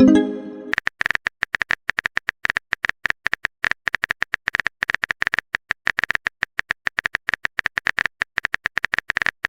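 A short pitched message chime at the very start, then rapid, irregular typing clicks of a phone-keyboard sound effect, many a second, stopping just before the end.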